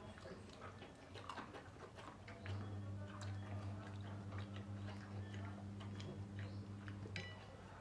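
Small scattered clicks and crackles of people eating by hand at a table: crisp samosa pastry being broken and chewed, fingers and food against steel plates. A steady low hum comes in about two and a half seconds in and stops about seven seconds in, and just before the end a steel tumbler gives a short ringing clink.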